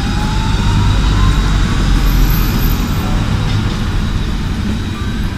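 Alstom Citadis 302 tram pulling away from a stop, its electric traction motors giving a thin whine that rises in pitch as it accelerates during the first second or so, over a steady heavy low rumble.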